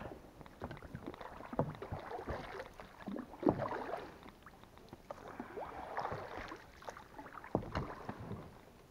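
Oars rowing an inflatable boat: the blades splash and swish through the water in several strokes, with sharp knocks of the oars in their oarlocks.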